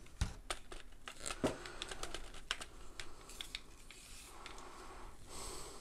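Light, irregular clicks and soft rustling from handling a monitor light bar's plastic mounting clamp and its braided USB cable.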